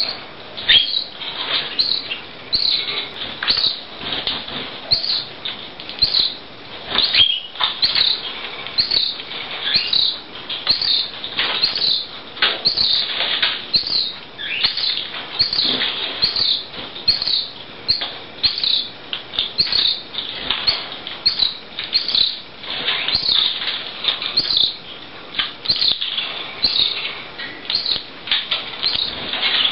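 A fledgling canary chick begging for food: a high cheep repeated about one and a half times a second, kept up without a break.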